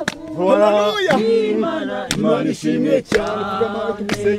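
Several voices praising and singing aloud together in a chant-like way, one holding a long note near the end, with a few hand claps.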